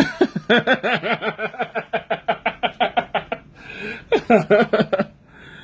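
A man laughing hard: a fast run of ha-ha pulses for about three seconds, then a second short laugh about four seconds in.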